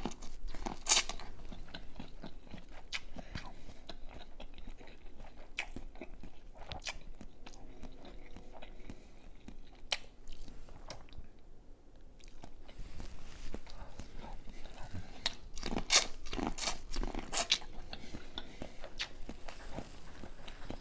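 A person biting kernels off a buttered corn cob close to the microphone and chewing them, a run of short crisp crunches with wet chewing between. The sharpest bites come about a second in and again around sixteen seconds in, with a quieter spell of chewing in the middle.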